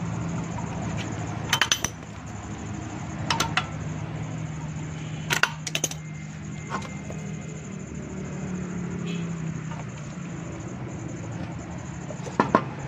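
Metal hand tools clinking in short bursts of sharp clicks, a few seconds apart, over a steady low hum.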